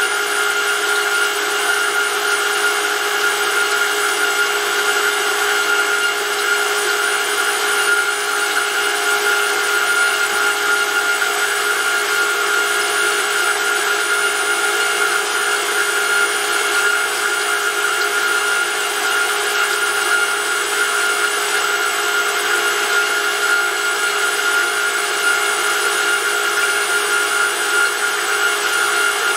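Brushless electric motor driving an oil pump on a test rig, running at a constant speed with a steady whine.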